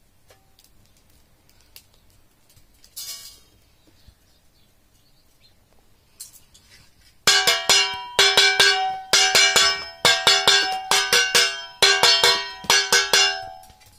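Steel plate struck rapidly over and over, clanging and ringing metallically in quick runs of strikes that start about halfway in.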